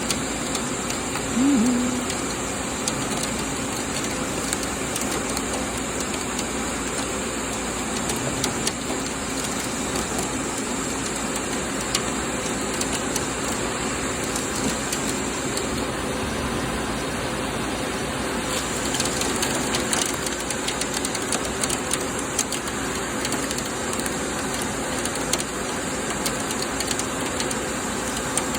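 Doosan PUMA GT2600 CNC lathe running steadily while cutting a SUS316 stainless-steel flange. It gives a constant machine hum under a hiss, with scattered light clicks.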